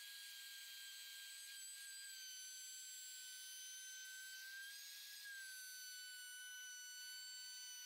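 Ryobi full-size router with a flush-trim bearing bit, trimming laminate flush with the edge. It is heard only as a faint, steady high whine with overtones that sags slightly in pitch a couple of times as the bit takes load.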